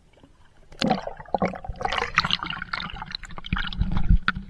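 Water splashing and gurgling close to the microphone, with scattered knocks and a low rumble a little after three and a half seconds in.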